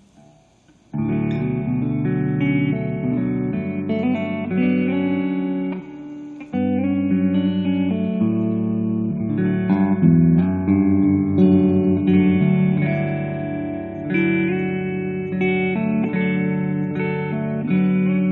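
Electric guitar played through a Super Hard On clone boost pedal into a tube Fender Super Reverb amp: strummed chords and single notes, starting about a second in, with a short pause near the middle.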